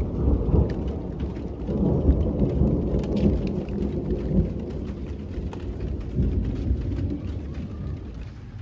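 Rolling thunder: a deep rumble that comes in suddenly, swells over the first couple of seconds and slowly fades away, with scattered raindrop ticks.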